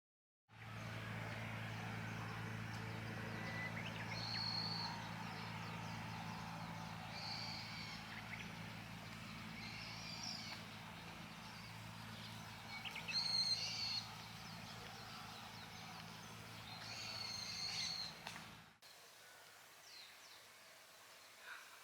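Wild birds calling outdoors, with short high chirps every few seconds over a steady low hum. About 19 s in the sound cuts to a quieter background.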